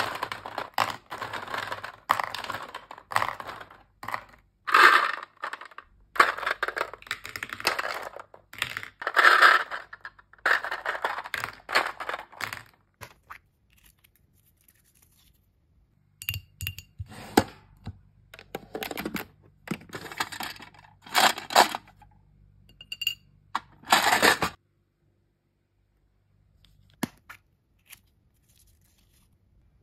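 Hand scooping through a clear plastic tray of small pink balls, the balls clattering and rolling against each other and the tray in repeated scoops for about twelve seconds. After a pause, a run of sharp clicks and paper rustles from handling a paper tag and a small plastic piece, which stops about three-quarters of the way through.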